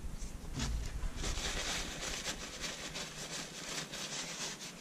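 A small steel trigger being rubbed back and forth on a diamond hone, a dense scraping hiss of many quick strokes from about a second in until shortly before the end, to smooth high spots and burrs off its sides.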